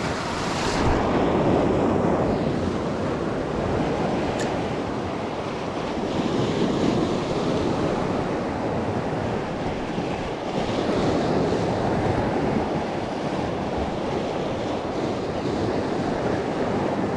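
Sea surf washing over shore rocks, surging and draining in slow swells every few seconds, with wind buffeting the microphone. A single brief click sounds about four seconds in.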